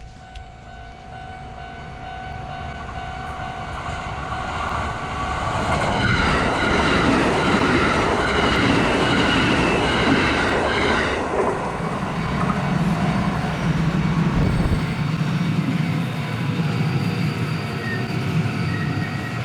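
A train passing close by: it builds up over about six seconds, is loudest for about five seconds with the wheels clattering, then runs on quieter as it moves away.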